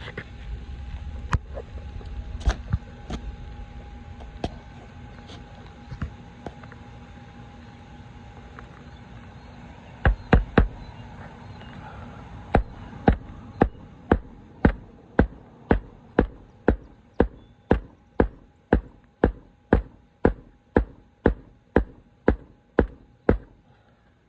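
Hammer striking roofing nails into an asphalt shingle. At first there are scattered taps, then three hard blows about ten seconds in, then a steady run of strikes at about two a second.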